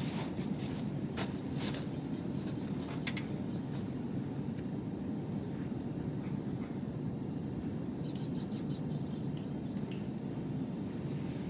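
Steady outdoor background noise: a low rumble under a continuous thin high-pitched tone, with a few light clicks in the first three seconds from handling the tarps and covers.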